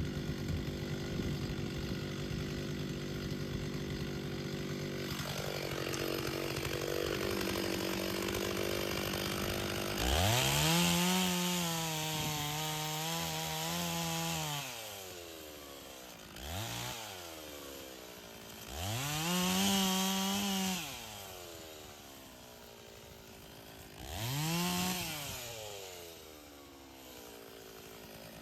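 Stihl chainsaw bucking firewood logs: the two-stroke engine runs steadily under load, drops in pitch about five seconds in, then revs high for about four seconds. After that it falls back to idle between a few shorter throttle bursts.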